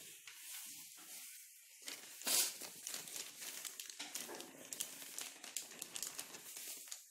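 A plastic packet crinkling as flour is shaken from it into a glass bowl of batter, with a louder rustle about two seconds in.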